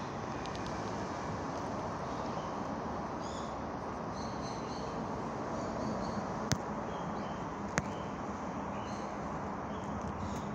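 Steady outdoor background hiss with small birds chirping in short high notes, and two sharp clicks about a second apart past the middle.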